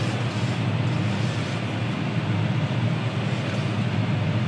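Steady low drone of a John Deere 6R-series tractor's engine, heard from inside its cab, with the combine harvester running close alongside.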